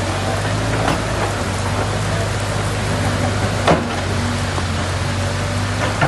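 Heavy rain falling steadily, with a steady low engine hum from running heavy equipment underneath. There is one sharp knock a little past halfway.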